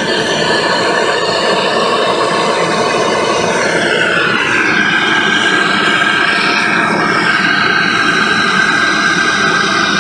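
MAPP gas torch flame hissing steadily as it melts fine silver in a melting dish. A steady high whistling tone comes in about halfway through.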